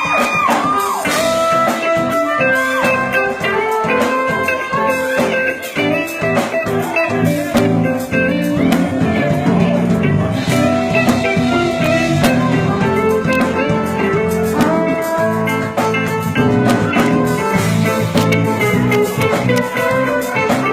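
Live band playing an instrumental passage: a melodic lead line of many short notes over drum kit and bass.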